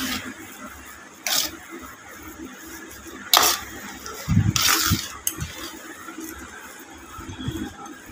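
Steel spoon scraping and clinking against a steel bowl while mixing mashed potato filling, in three short strokes about a second, three and a half, and four and a half seconds in.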